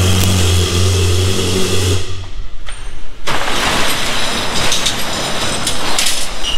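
Ferrari 488's freshly swapped twin-turbo V8 running at a steady idle on its first start, cutting off abruptly about two seconds in. A broad hiss with scattered clicks follows.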